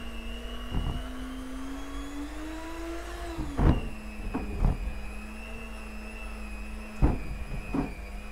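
Electric hand mixer running in sponge cake batter, its motor hum climbing gradually in pitch and then dropping abruptly about three and a half seconds in. Several sharp knocks come as the beaters strike the plastic bowl.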